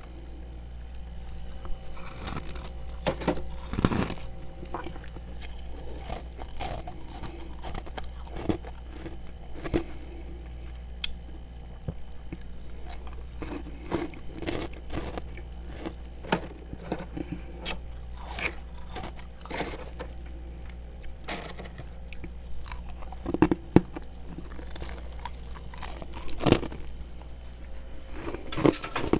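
A person biting and chewing mouthfuls of freezer frost: irregular crisp crunches, some louder than others, over a steady low hum.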